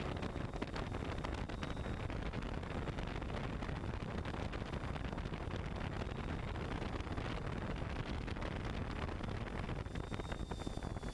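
F550 hexacopter's motors and propellers running steadily in flight, heard from the GoPro on its frame with wind noise on the microphone. A faint high whine comes in near the end.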